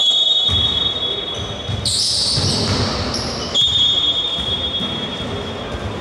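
Basketball court sounds: a high, steady squeal heard twice, each lasting nearly two seconds, over low thuds of a basketball bouncing on the hardwood floor.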